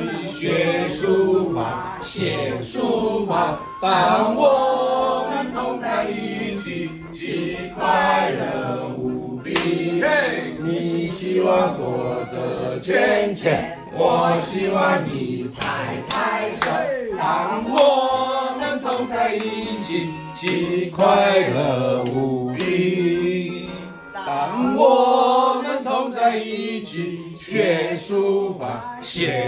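A small group of voices singing together in unison.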